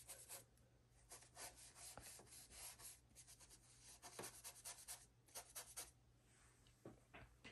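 Faint, quick scratchy strokes of an ink blending brush dabbed and rubbed on paper, with a short lull about three seconds in, dying away after about six seconds.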